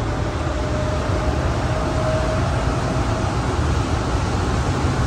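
Denver Airport automated train car running through its tunnel, heard from inside: a steady rumble and rushing noise. A faint steady whine, which the rider credits to the car's motor, fades out about three seconds in.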